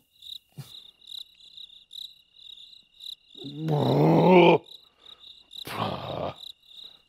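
Crickets chirping in an even pulsing rhythm, a few chirps a second over a steady high trill. A man lets out a long, annoyed groan about three and a half seconds in, then a short huff near six seconds.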